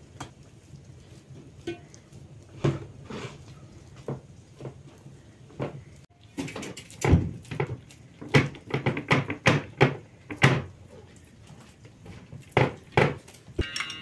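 Hands pressing and patting bread dough out in a large round metal baking tray: scattered soft knocks at first, then quick runs of pats from about halfway through.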